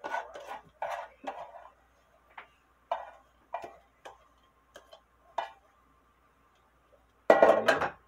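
A hand scraping sliced banana flower out of a metal pot into a glass baking dish: a run of short scrapes and rustles against the pot over the first six seconds, then a louder, longer clatter near the end.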